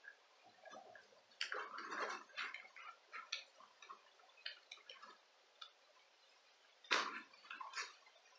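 Irregular small clicks and scrapes of a screwdriver working a tiny screw into the plastic headband hinge of JBL Bluetooth headphones, as the headband is handled. A louder knock comes about seven seconds in.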